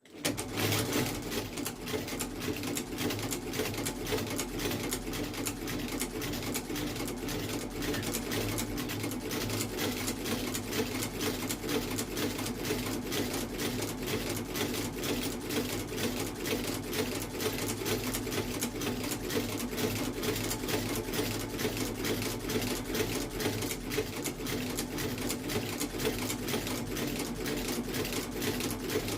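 Sole-stitching machine running continuously at a fast, even stitching rhythm over a steady motor hum while it sews a new leather sole onto a shoe. It starts abruptly.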